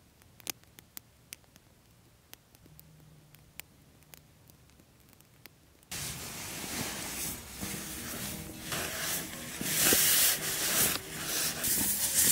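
Faint, scattered crackle of a small campfire. About halfway through it cuts to loud, irregular rustling of a nylon down sleeping bag and tent fabric being handled.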